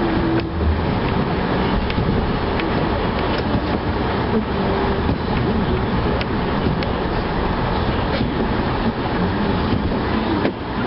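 Vehicle plowing snow with a Boss snowplow: steady loud engine and driving noise with a few sharp knocks and rattles scattered through it.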